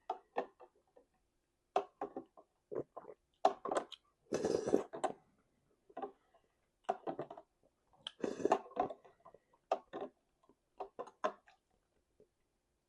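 Close-miked mouth sounds of eating: irregular wet smacks and clicks of chewing, with two longer noisy bursts about four and eight seconds in.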